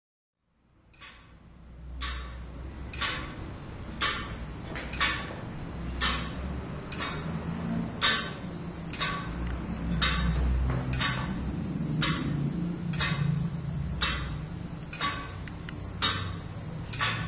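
F. J. Weule tower clock movement ticking about once a second as its Graham deadbeat escapement beats seconds, over a low rumble. The ticking fades in during the first second or two.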